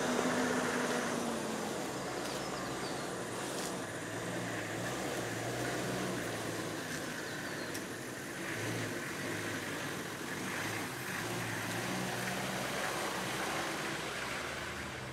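Toyota Land Cruiser four-wheel drive running slowly along a dirt track, its engine a low, steady drone as it comes up and passes close by near the end.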